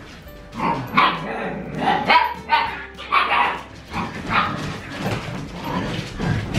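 Seven-week-old Siberian husky puppies yipping and barking as they play-fight, a string of short calls starting about half a second in.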